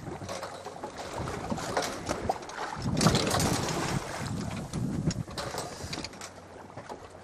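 Sea water rushing and splashing along a small sailboat's hull as it rides over rolling swells, with wind buffeting the microphone. The wash surges several times, loudest about three seconds in, and eases off near the end.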